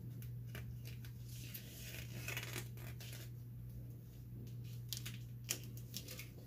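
Duct tape being handled and pressed around an axe head's edge, with a stretch of crinkling about two seconds in. A few light clicks and knocks come from the axe and tape being moved on a wooden workbench, over a steady low hum.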